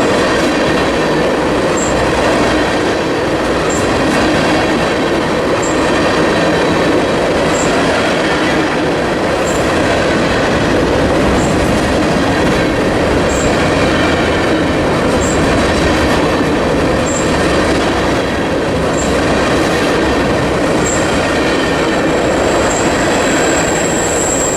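Ballast train's freight cars rolling slowly past, with steady wheel-on-rail rumble and short high wheel squeaks about every two seconds. A sustained high wheel squeal rises near the end.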